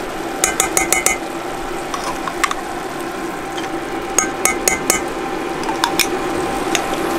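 Metal spoon clinking against a glass jar and the rim of a stainless steel pot while red curry paste is scooped out and tapped off into the pot: short clusters of quick sharp clinks over a steady low hum.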